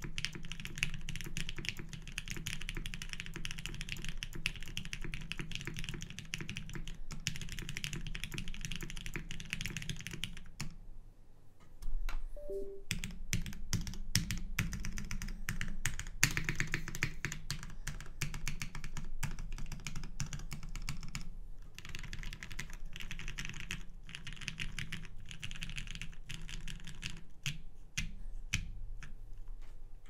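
TGR Jane V2 mechanical keyboard with lubed retooled Cherry MX Black linear switches on an aluminium plate and Cherry G81-3000 keycaps, typed on in quick, continuous runs of keystrokes. The typing stops for about a second around eleven seconds in, then carries on.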